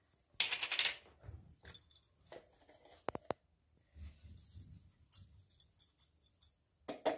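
Quiet handling of spice jars over a steel mixing bowl: a short rustle about half a second in, two quick light clinks around three seconds in, and faint scattered taps.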